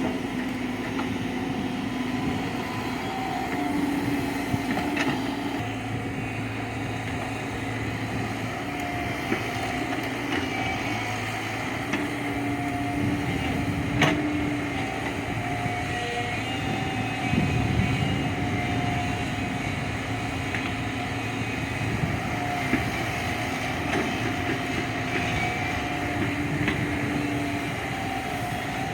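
JCB 3DX backhoe loader's diesel engine running steadily as it works, with a few sharp knocks, the loudest about halfway through.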